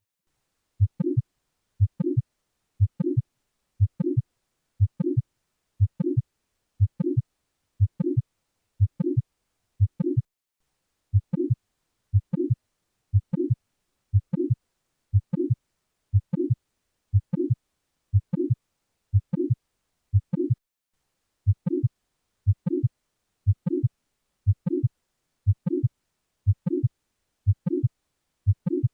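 Heart sounds from mitral valve prolapse: a late systolic murmur sits between the first and second heart sounds of each beat. The beats repeat evenly at about one a second.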